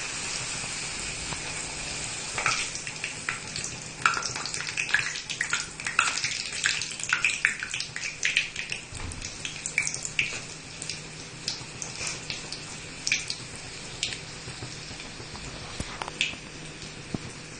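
A wheat-flour puri deep-frying in hot oil in a steel kadai: a steady sizzle with sharp crackles and pops, thickest in the first half and thinning toward the end.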